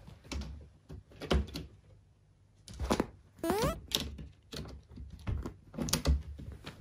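Irregular soft knocks and thumps with fabric rustling as cats move about on a blanket-covered sofa. About three and a half seconds in there is a short rising call.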